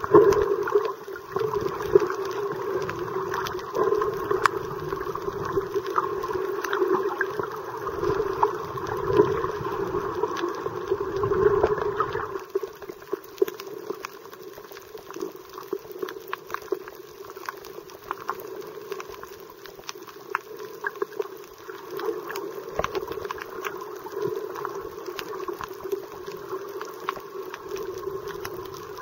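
Muffled underwater sound picked up by a submerged camera: water movement and scattered crackling clicks. It is fuller and louder for about the first twelve seconds, then thinner and quieter.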